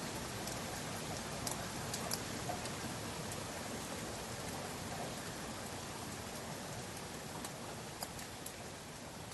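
Steady rain falling, an even hiss with scattered individual drops ticking sharply now and then.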